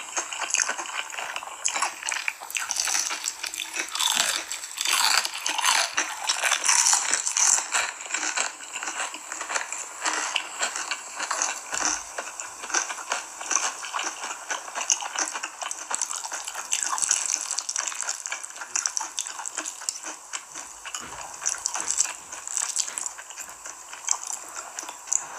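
Close-miked eating sounds: a dense run of crunching on crispy fried shrimp and chewing of spicy noodles.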